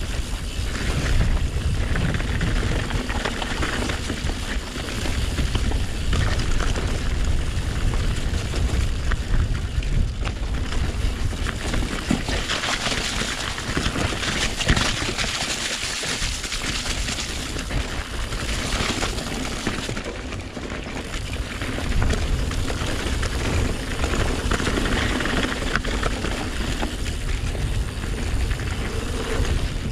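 Mountain bike riding down a rough, wet enduro trail: wind rumbling on the camera microphone, tyres hissing over the wet surface, and a constant rattle of knocks as the bike hits bumps and roots.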